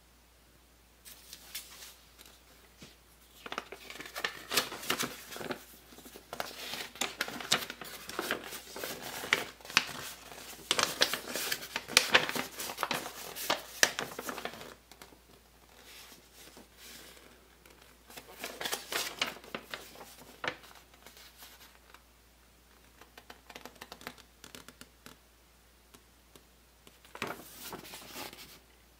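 Paper and packaging being handled: crinkling, rustling and scraping in irregular bursts, with quiet pauses between.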